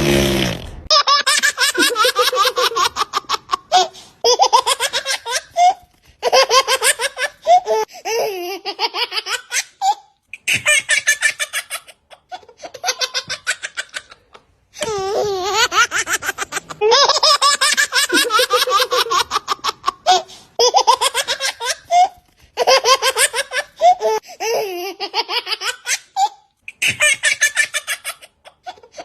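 A baby laughing in repeated bouts of quick, pulsing laughs, each bout lasting one to a few seconds with short pauses between.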